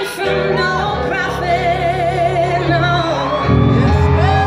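A woman singing lead into a microphone with vibrato on held notes, over a live band, heard through a concert PA.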